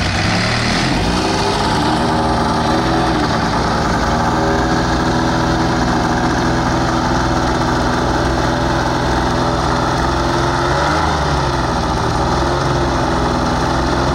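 Hovercraft engine and propulsion fan running steadily just after starting, the pitch climbing a little in the first couple of seconds and wavering briefly near the end.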